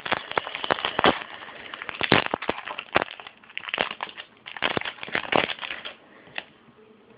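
Crinkling and crackling of a foil trading-card pack wrapper being handled and torn open, in quick irregular bursts that die down about six seconds in.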